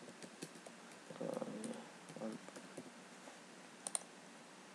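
Computer keyboard typing: light, scattered key clicks, then one sharper click near the end, a mouse click.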